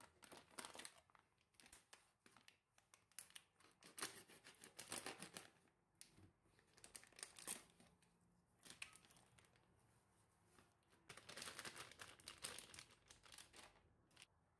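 Food packaging being crinkled and torn open, in several irregular bouts of rustling with short pauses between them.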